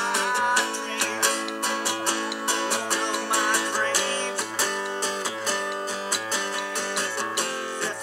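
Acoustic guitar strummed and picked in a steady rhythm, playing a song's instrumental passage.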